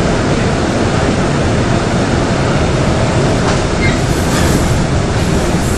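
Korail Class 3000 subway train running, heard from inside the passenger car: a steady, loud rumble of the wheels and running gear on the track, with a few faint clicks about two-thirds of the way through.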